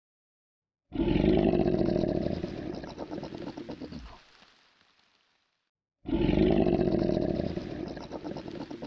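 Crocodile growl, played twice: each a loud, deep rumbling call of about three seconds that breaks into a rapid rattle as it fades. The first starts about a second in and the second about six seconds in.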